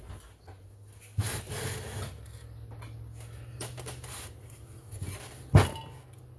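Screwdriver scraping and grinding against the top-cover screws of a Stihl 031AV chainsaw as they are forced loose, with a few small clicks and a single sharp knock a little over five seconds in.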